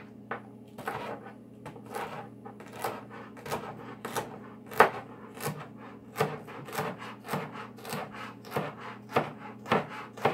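Chef's knife chopping celery stalks on a wooden cutting board: a steady run of sharp knocks, about two to three a second, with one louder chop about halfway through.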